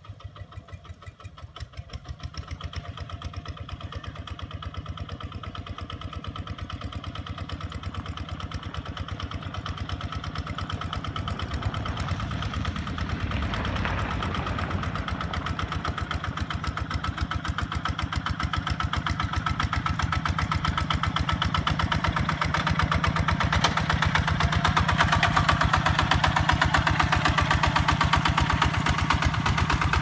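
Two-wheel walking tractor's single-cylinder diesel engine running steadily under load as it pulls a plough, growing steadily louder as it comes closer.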